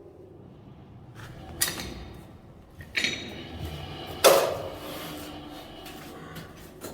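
Three sharp knocks or clanks of hard objects being handled, a second or so apart; the loudest comes a little past four seconds in and rings briefly. A low steady rumble runs underneath.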